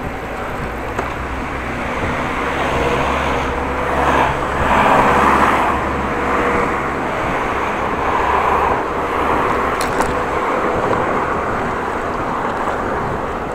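Street traffic: a motor vehicle's engine hum close by, growing louder and peaking about five seconds in, then easing off over steady road noise.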